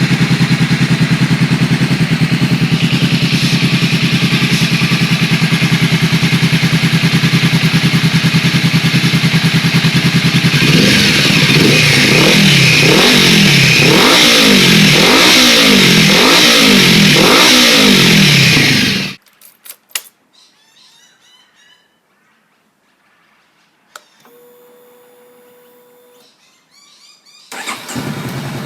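2013 Honda CBR500R's parallel-twin engine idling steadily through a Two Brothers aftermarket exhaust, then revved in a series of quick blips, about one a second. The sound cuts off abruptly about two-thirds of the way in, leaving a few faint clicks and a short steady tone, and the engine comes back near the end.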